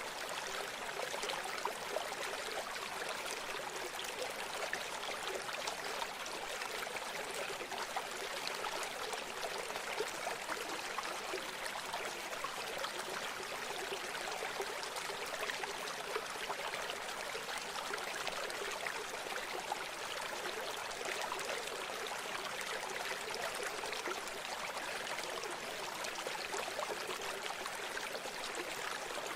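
River water running steadily, a continuous hiss-like rush with many small splashes and gurgles, mostly high-pitched with little deep rumble.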